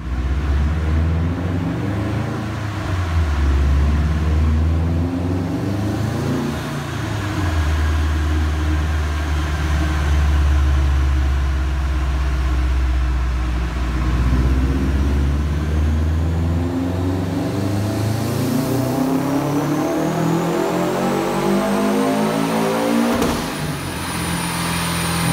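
Turbocharged Subaru WRX STI flat-four with a BCP X400 turbo running on a chassis dyno, first held at low revs and then pulled hard. The engine note climbs steadily for about nine seconds with a high whine rising alongside. Near the end the note drops away abruptly as the throttle is closed.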